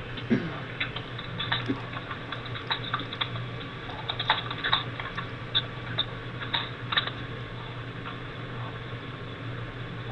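A run of irregular light clicks and taps, like keys being typed, over a steady low hum; the clicks die away about seven seconds in.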